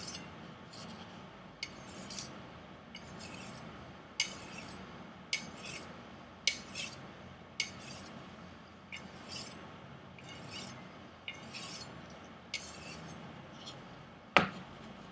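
Kitchen knife blade drawn in light stropping passes across a smooth leather strop loaded with black compound, a faint swish about once a second. There is a sharper knock near the end.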